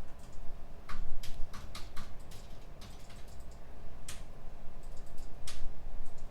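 Computer keyboard typing: irregular runs of keystrokes with short pauses, heard over a steady low hum.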